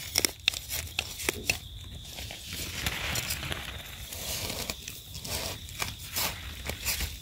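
Dry leaves and soil crackling and rustling as a hand digs out and pulls termite mushrooms (Termitomyces) from the forest floor. There is a cluster of sharp crackles in the first second or so, a softer rustle in the middle, and more crackles near the end.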